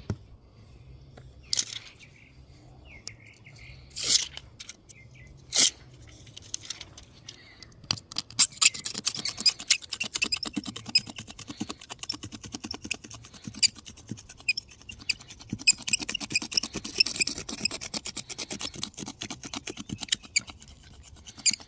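Scraping on windshield glass in fast, short strokes, beginning about eight seconds in after a few isolated clicks, while the chip repair is being cleaned up.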